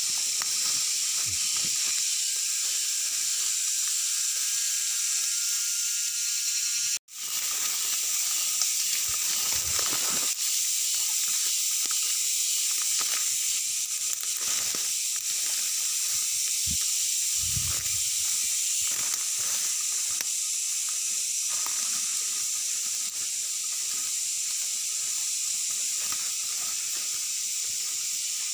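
Steady, high-pitched insect chorus of the forest, a constant shrill buzz that cuts out for a moment about seven seconds in. A few soft thumps and rustles come from someone moving through the undergrowth.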